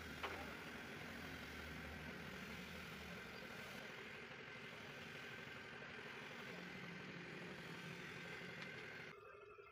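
Steady running machine noise, a hiss with a low hum under it, that stops abruptly about nine seconds in.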